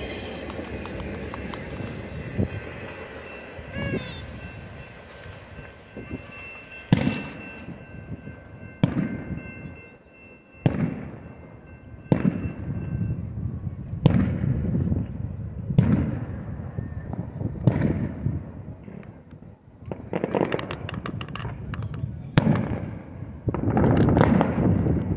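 Fireworks going off as repeated sharp booms, one every second or two, coming thicker and louder over the last few seconds. A freight train's passing rumble is at the start and fades within the first few seconds.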